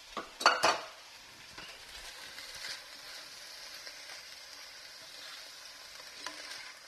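Shredded chicken, mushrooms and onions sizzling in a frying pan on high heat while a spoon stirs them, with a steady hiss. A few sharp knocks come about half a second in.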